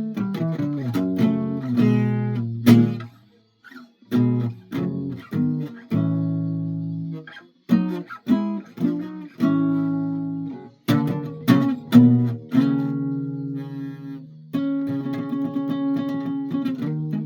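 A guitar played solo: plucked single notes and ringing chords in loose, uneven phrases, stopping briefly twice in the first half.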